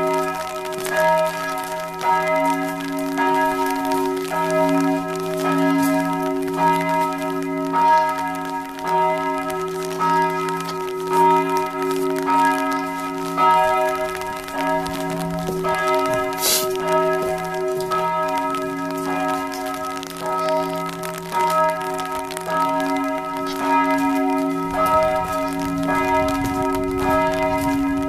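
Church bells pealing continuously: repeated strikes of several bells overlapping, their ringing merging into a steady hum.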